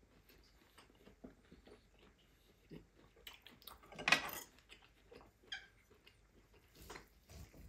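Close-miked chewing and wet mouth sounds of a man eating steak: scattered soft clicks and smacks, with one louder mouth noise about four seconds in.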